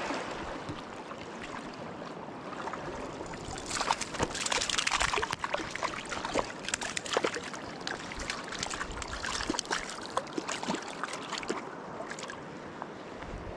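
Flowing river water around a wading angler, with small knocks and clicks throughout and a louder, brighter stretch of water noise about four seconds in.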